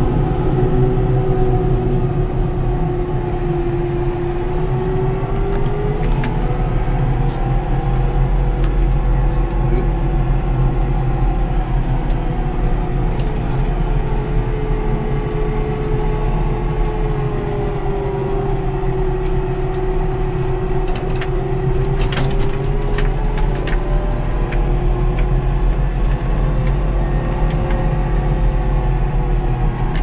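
Fendt tractor running steadily while driving along a gravel track, heard from inside the cab: a deep engine rumble with a whining tone that slowly rises and falls in pitch. A few sharp rattles come about two-thirds of the way through.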